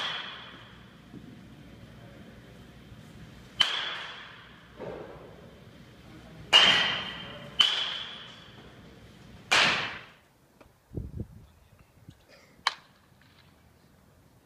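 A baseball bat striking pitched balls in a batting cage: a sharp crack at each hit with a brief ringing tone after it, about four or five hits a few seconds apart, with quieter knocks near the end.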